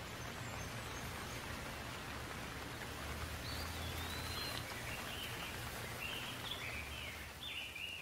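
Steady rain falling, with a bird singing short phrases of high, sliding notes from about halfway through.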